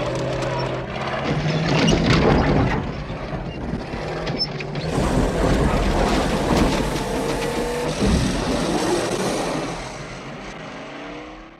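Car engine running hard under load while the tyres crunch and rattle over a rough dirt road, with scattered knocks from the car bouncing; near the end the engine pitch rises a few times.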